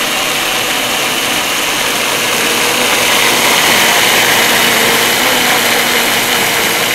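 Omega B2500 2-horsepower commercial blender running at high speed, blending a thick smoothie of coconut, apricot and frozen banana: a steady, loud whir that swells slightly partway through.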